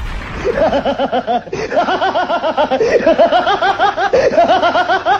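Rapid, high-pitched laughter in a quick run of short ha-ha's, about five a second, starting about half a second in and pausing briefly twice. It is a meme laugh sound effect played over a grinning-monkey clip.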